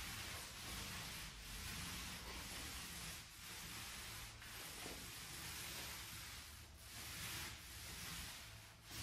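Paint roller with a half-inch nap rolling eggshell paint onto a drywall wall: a faint hissing rub that swells with each stroke, roughly once a second.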